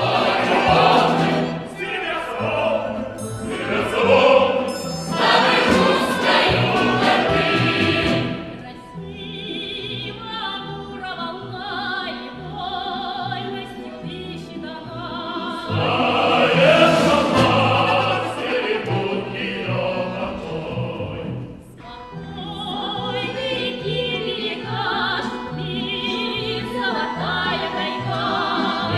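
Russian folk choir of men's and women's voices singing with an accompaniment of button accordions (bayans) and plucked folk strings. The singing softens from about eight seconds in and swells back to full strength around sixteen seconds.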